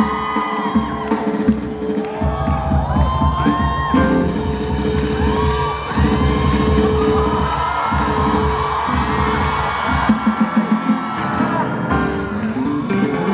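Live band music: an instrumental break in a Christmas carol medley, with a steady bass line under gliding melodic lines.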